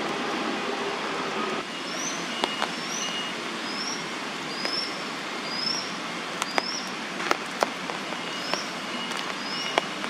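Juvenile crested goshawk's food-begging calls: a thin, high, rising chirp repeated about every two-thirds of a second, starting about two seconds in. A steady hiss and a few sharp ticks lie underneath.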